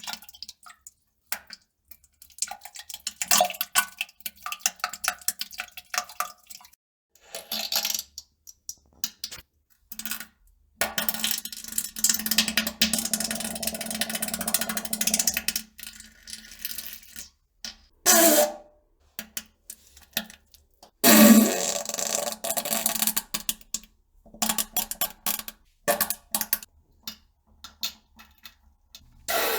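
A person farting and defecating in a series of irregular sputtering, crackling bursts separated by short pauses, with wet splashes. The longest, sputtering stretch comes about eleven seconds in and lasts about five seconds.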